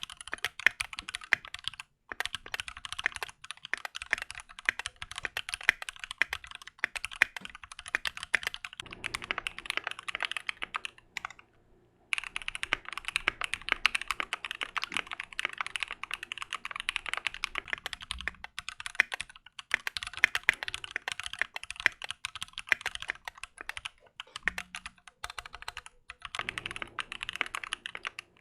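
Keychron Q2 mechanical keyboard typed on fast, a dense stream of keystrokes with a couple of short pauses, one about 2 seconds in and one near 12 seconds. The board is about 80% modded for sound, and its switches are not yet lubed or filmed.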